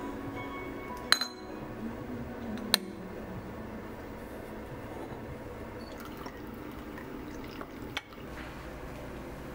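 Two sharp ceramic clinks, as the lid is set on a porcelain teapot. Tea is then poured from the pot into a ceramic cup, a steady trickle of liquid, with a light knock near the end.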